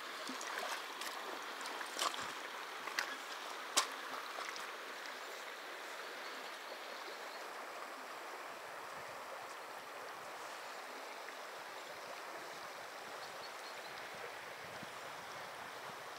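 River current flowing steadily as an even rush of water. A few sharp clicks or knocks come in the first four seconds, the loudest nearly four seconds in.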